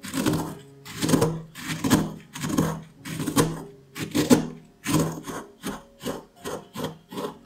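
Wooden pestle pounding crisp biscuits into crumbs in a ceramic bowl: a crunching stroke about twice a second. Near the end the strokes grow shorter and quicker as the biscuits break down to fine crumbs.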